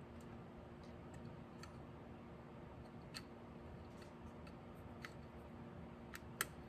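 Faint, scattered small metallic clicks and taps as the condenser and coil wire leads are fitted onto the breaker points inside a distributor, the sharpest click near the end, over a faint low steady hum.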